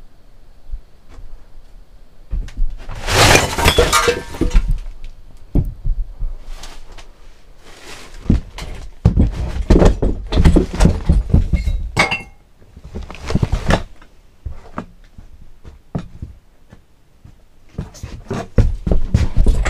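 A commotion of repeated crashes, bangs and clattering, as things are knocked about and broken: a loud burst about three seconds in, a long run of dense clatter in the middle, a short lull, then more crashing near the end.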